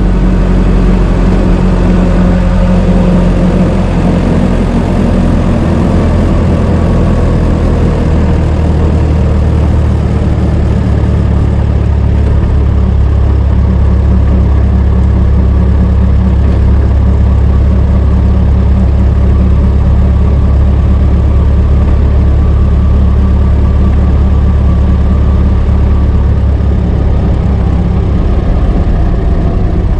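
Old car's engine running steadily, with a low, even note and a slight shift in pitch in the first few seconds.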